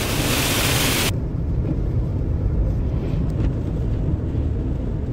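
Car driving on the highway: a steady low road rumble inside the cabin. A loud hiss rides over it at first and cuts off abruptly about a second in.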